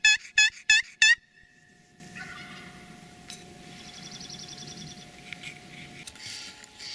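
A loud run of turkey yelps at about three a second; four yelps fall in the first second before the run stops. Quieter open-air ambience follows, with a faint fast high-pitched trill near the middle.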